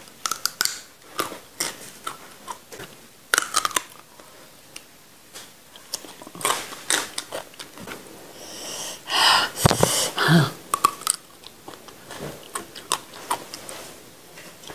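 Biting and chewing raw papaya stems close to a microphone: irregular wet crunches and snaps, with a louder burst of noise about nine seconds in.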